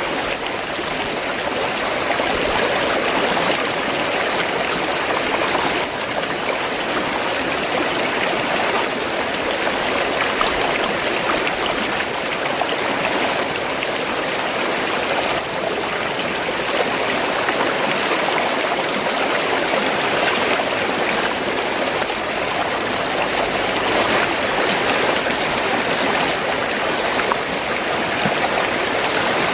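Fast-flowing stream water gurgling and rushing steadily.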